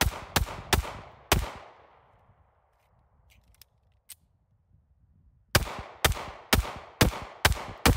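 Rock Island Armory TAC Ultra CS 9mm 1911 pistol firing: four quick shots in the first second and a half, then a pause of about four seconds with a few faint clicks, then six shots about half a second apart.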